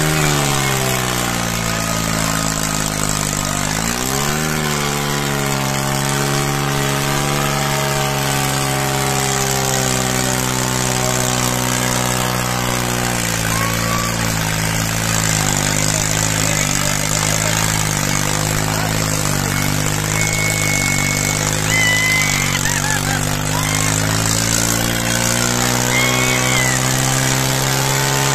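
New Holland tractor's diesel engine revving up twice in the first few seconds, then running hard and steady as it pulls a loaded trolley, its pitch shifting slightly now and then.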